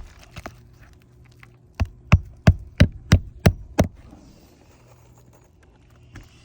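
A hammer strikes seven times in quick, even succession, about three blows a second, after a few light taps: a roofing nail being driven in to refasten a shingle.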